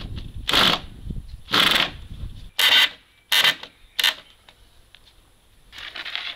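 Cordless drill driving screws into rough wooden fence poles: five short bursts in the first four seconds, the last ones briefer. Near the end comes a softer scraping rustle as a long wooden pole is handled.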